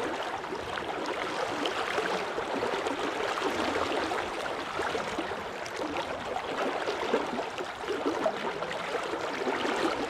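Flowing stream water, a steady rushing with small splashy flecks.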